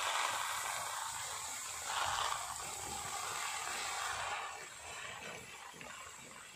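Loose dry grains rustling and sliding as they shift, a dry hiss that swells briefly about two seconds in and then fades away.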